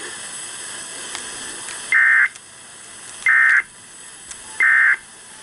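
NOAA Weather Radio's Emergency Alert System end-of-message code: three short, identical, buzzy digital data bursts about a second and a quarter apart, starting about two seconds in, over steady radio hiss. The bursts mark the end of the alert transmission, here closing a required weekly test.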